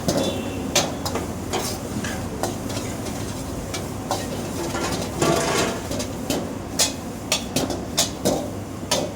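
A metal utensil knocking against a cooking pot while the food is stirred: irregular sharp clinks that come more often after about six seconds, over a steady low hum.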